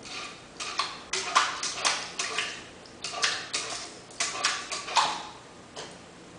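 Samoyed puppy splashing and slapping at the water in a stainless steel bowl: quick, irregular splashes in several bursts, with the metal bowl clinking.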